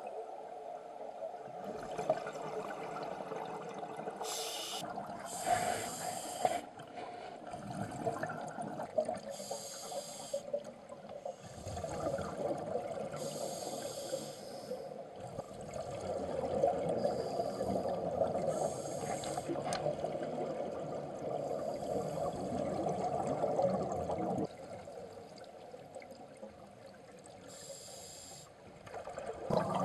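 Scuba diver breathing through a regulator, heard underwater: several short hissing inhalations at irregular intervals over a steady bubbling of exhaled air.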